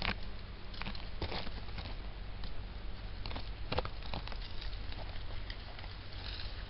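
Dry leaves and twigs crackling and rustling irregularly, with a few sharper snaps, as someone moves through leaf litter.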